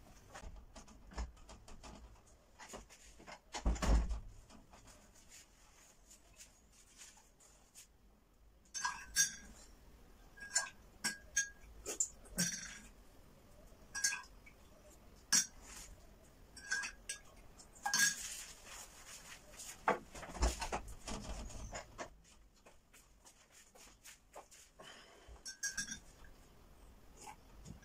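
A spoon clinking against a ceramic mug while something is stirred in: a run of about a dozen sharp, ringing clinks over several seconds. There are also two dull thumps, one near the start and one past the middle.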